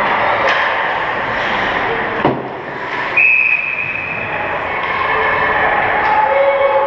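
Ice hockey arena sound during play: a steady wash of skates on ice and voices in the rink, with a sharp stick-or-puck knock about two seconds in. A high steady tone starts a little after three seconds and holds for about a second and a half.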